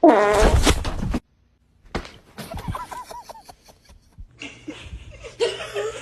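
A person laughing in short bursts and chuckles, with a loud outburst at the start that cuts off suddenly.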